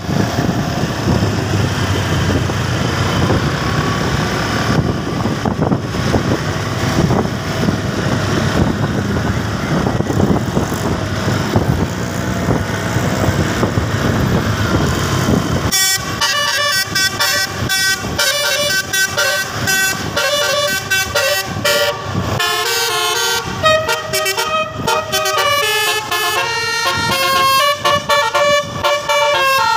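A steady rumbling vehicle noise for the first half. About 16 seconds in, a multi-tone basuri telolet horn starts playing a melody of quickly changing notes and keeps on to the end.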